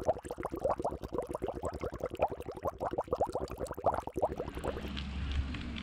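Lake water sloshing and bubbling close up as a swimmer moves in it, a quick run of gurgles and splashes. About four seconds in it cuts off and a steady low rumble takes over.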